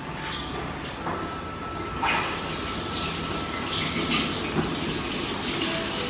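Running water that starts suddenly about two seconds in and keeps flowing steadily.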